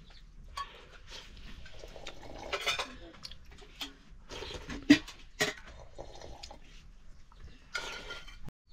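Metal dishes and utensils clinking and clattering as they are handled, in scattered knocks with two sharp, loud clinks about five seconds in.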